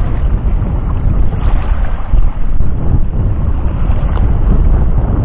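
Wind buffeting the microphone: a loud, gusty low rumble that rises and falls throughout.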